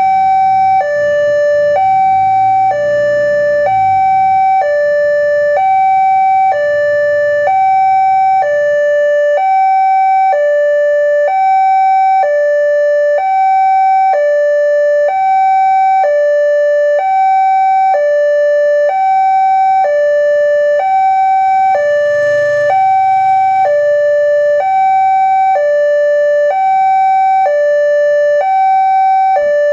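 Railway level-crossing warning alarm ringing: an electronic two-tone signal that alternates a higher and a lower tone evenly, about one pair a second. It is the warning that the crossing is closed and a train is due.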